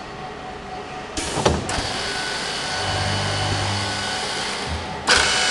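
MZB73216 six-row multiple boring machine starting up: a sudden rush of noise about a second in with a sharp clack, then a steady whine and hiss. It jumps louder again near the end.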